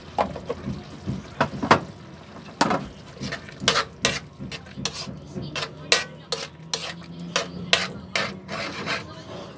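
A spoon stirring sauce in an aluminium wok, clinking and scraping against the pan in irregular strokes.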